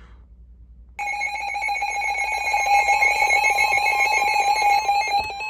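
Emergency Alert System attention signal: a harsh, steady two-tone alarm that cuts in suddenly about a second in and holds for about four seconds, announcing an incoming severe thunderstorm warning.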